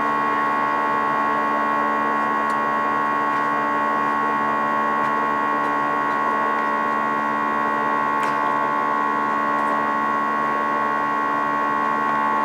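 Steady cabin drone of an Airbus A320 airliner with its engines running: an even rushing noise carrying several held tones, with a couple of faint clicks.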